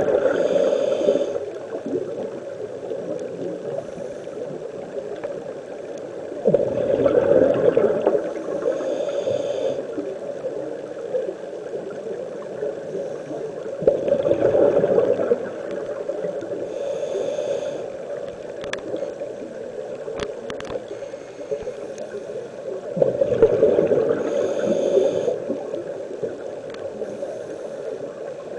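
Scuba diver breathing through a regulator underwater. Surges of exhaled bubbles come about every eight seconds, with a short hiss of the inhale between them, over a steady underwater hiss.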